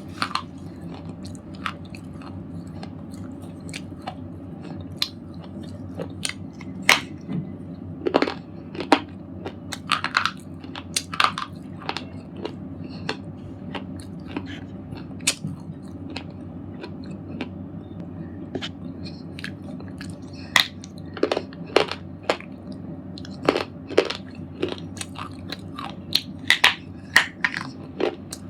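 A red slate ball being crunched, giving many sharp, irregular crunches that come thicker in bursts over a steady low background noise.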